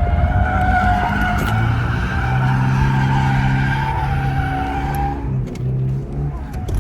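Tyres squealing as a Toyota GR86 is driven hard, over the steady note of its 2.4-litre flat-four engine; the squeal stops about five seconds in and the engine note then comes and goes.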